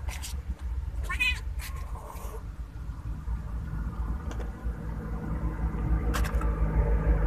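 A tabby mother cat meowing once about a second in, with a fainter second call shortly after, over a steady low rumble.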